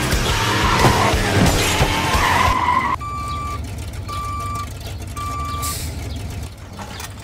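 The Planters Nutmobile's tyres screeching as it speeds along, then, about three seconds in, a backup alarm beeps three times, each beep about half a second long and about a second apart, as the vehicle reverses.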